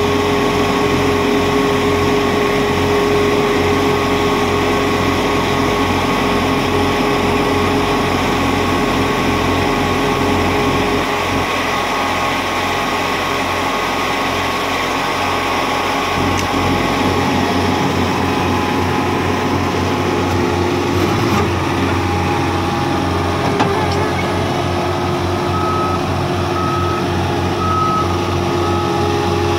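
Somero S-15R laser screed running steadily as it levels concrete, its engine and hydraulics holding several steady tones that change pitch as the load shifts. Near the end its reversing alarm starts beeping about once a second as the machine backs up.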